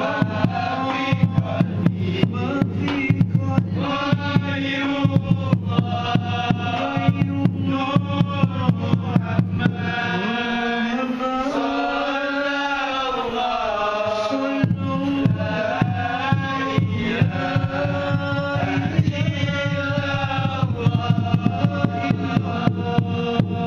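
A group of men sings a selawat in unison, led by a voice on a microphone, over fast, dense strokes on kompang hand frame drums. About ten seconds in, the drums drop out for about four seconds while the voices sing alone, then the drumming comes back in.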